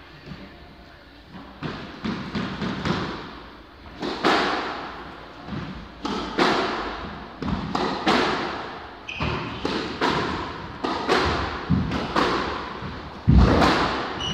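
Squash rally: the ball hits rackets and the court walls in quick succession, about one sharp strike a second, each ringing out around the court, loudest near the end. A short squeak is heard near the middle.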